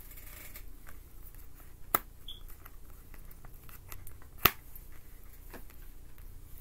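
Tarot cards being handled and laid on a cloth-covered table: soft slides and light taps, with two sharp clicks, the second louder, a couple of seconds apart.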